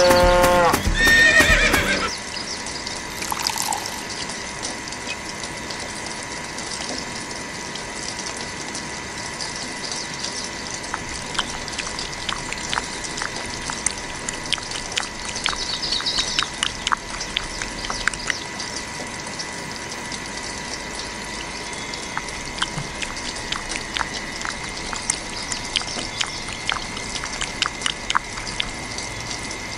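A horse whinnies once at the start, a pitched call that falls and then rises again over about two seconds. After it comes a quieter steady hiss with scattered faint clicks and a faint steady high tone.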